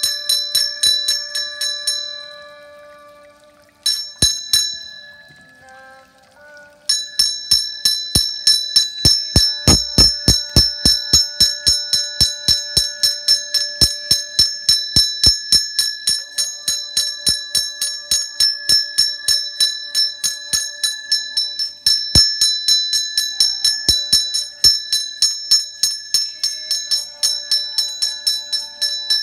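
A small metal puja bell rung rapidly, about four strokes a second, with a bright, sustained ring between strokes. It dies away for a few seconds near the start, then rings on without a break.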